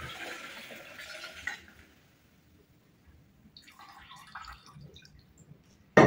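Liquid from fermented apples pouring through a fine-mesh conical strainer into a plastic jug, the pour thinning and stopping about a second and a half in, then a faint trickle from a thin stream. A sudden loud clatter comes right at the end.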